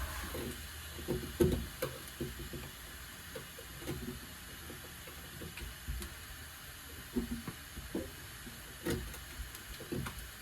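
A scraper working rubberized undercoating off a car body's sheet metal: irregular scrapes and knocks of uneven length over a steady hiss.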